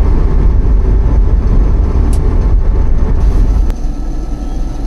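Steady low rumble of engine and road noise inside a moving freight vehicle's cab. About three and a half seconds in there is a single click, and the rumble drops noticeably.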